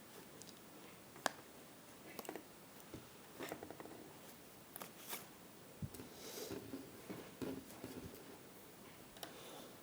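Scattered light clicks and rustling of small electronic parts and tools being handled on a workbench. One sharp click about a second in is the loudest, and a longer rustle comes a little past the middle.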